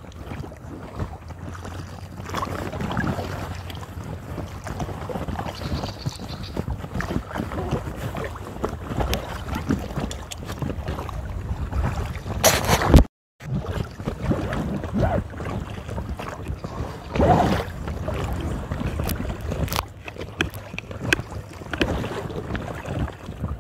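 Wind rushing on a phone microphone over choppy river water, with irregular sloshes and knocks of paddling in an inflatable kayak. A loud knock comes about halfway, just before the sound cuts out briefly.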